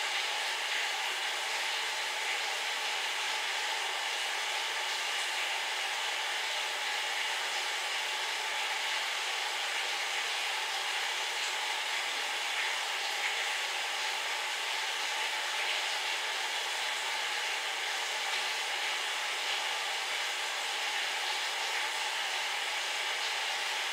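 Steady, even hiss like rushing air, strongest in the upper middle range, holding at one level without breaks.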